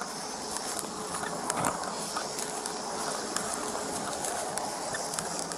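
Steady outdoor background noise picked up by a body-worn camera, with a few faint knocks and rubbing as the camera is jostled against the wearer's arm.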